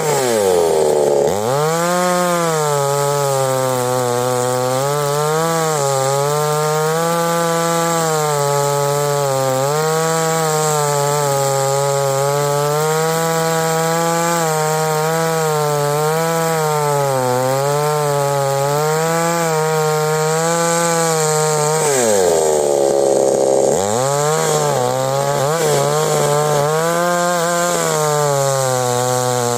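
Gasoline chainsaw ripping lengthwise down through a log, the engine running at high revs with its pitch wavering under the load of the cut. Twice, near the start and about two-thirds of the way through, the engine speed sags low and then climbs back up.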